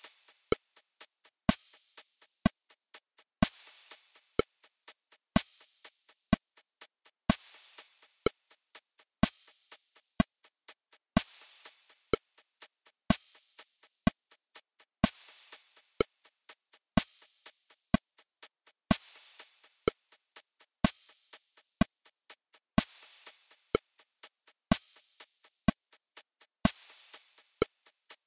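Drum-machine metronome backing track in 4/4 at 62 BPM, ticking steadily at about two clicks a second. A longer hissing, cymbal-like hit marks the start of each bar, about every four seconds.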